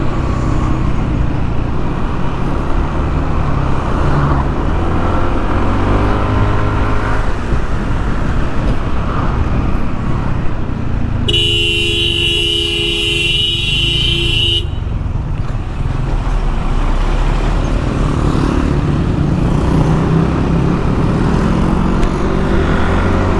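Steady wind and road noise from a scooter ride in traffic. About halfway through, a vehicle horn sounds for roughly three seconds, the loudest thing heard.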